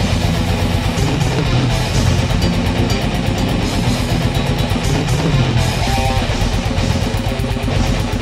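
Death metal music: heavily distorted electric guitars and bass played over fast, dense drumming, loud and unbroken.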